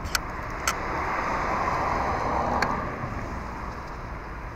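A car passing by: tyre and road hiss swells, peaks and fades away over about two seconds. A few sharp ticks and a steady low rumble sit underneath.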